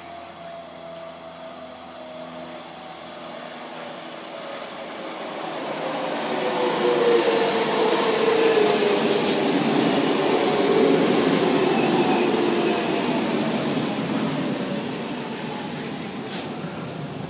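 Kintetsu 6620 series electric train approaching and passing close by: the rumble and wheel noise swell to a peak about seven to twelve seconds in and then fade as it moves away. A whine runs underneath, falling slowly in pitch throughout.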